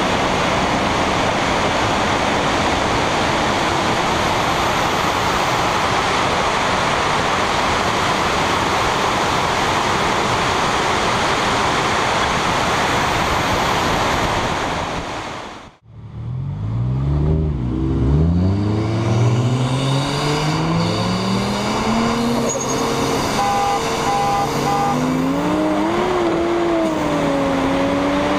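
Wind and road noise rushing over a car's outside-mounted camera at speed, steady for the first half, then cut off abruptly. After the cut, car engines rev and pull with rising pitch as the cars accelerate, with a short run of beeps partway through.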